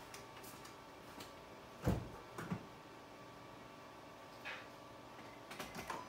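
A heavy thump about two seconds in, a lighter knock half a second later, and a quick cluster of light clicks near the end.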